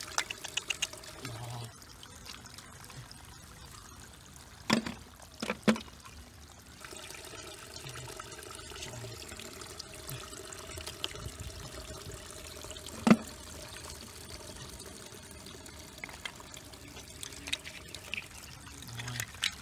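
Water pouring and trickling, broken by a few sharp knocks or splashes: one about five seconds in, a quick pair just after, and the loudest about thirteen seconds in.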